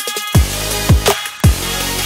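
Electronic background music with a steady beat: deep drum hits that drop in pitch land about twice a second over held synth tones.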